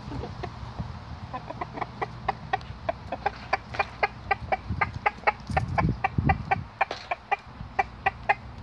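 Chickens clucking in a steady run of short, quick notes, about three or four a second.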